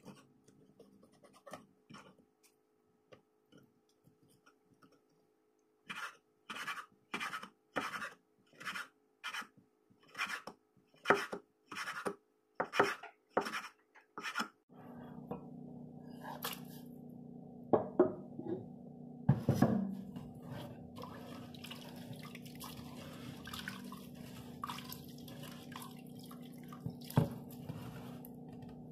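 Chef's knife slicing on a wooden cutting board, a run of sharp strokes about twice a second. About halfway through the slicing stops and a steady low hum comes on, with a few knocks and clatter.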